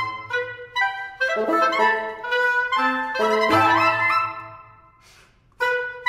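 Reed quintet of oboe, clarinet, soprano saxophone, bass clarinet and bassoon playing loud, jagged staccato figures and quick runs of contemporary chamber music, with a few short held notes. About five seconds in the music drops to a brief near-silent pause, then a loud chord breaks in again.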